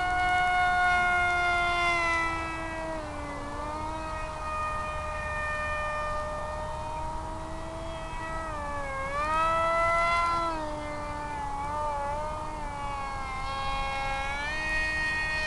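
Electric motor and propeller of an FPV flying wing in flight, a pitched whine that rises and falls as the throttle changes. It is loudest in the first couple of seconds and again about ten seconds in, with dips in between.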